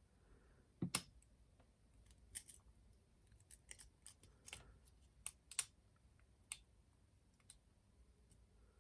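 Metal lock pick and tension tool clicking and scraping inside a Yale padlock as its pins are picked: faint, irregular clicks, the loudest about a second in.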